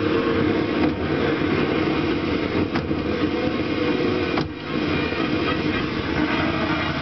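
Panasonic RS-806US 8-track deck running a tape, giving a dense, steady sound. A sharp click comes about four and a half seconds in as a front-panel button is pressed, and the sound briefly dips.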